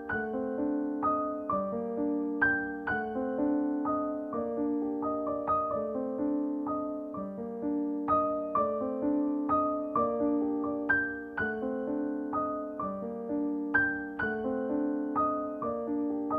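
Background piano music, with notes and chords struck at an even, unhurried pace, each ringing out and fading.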